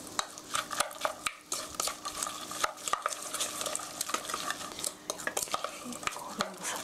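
Ground pork and chopped vegetables being stirred together in a mixing bowl: irregular scraping and clicking against the bowl.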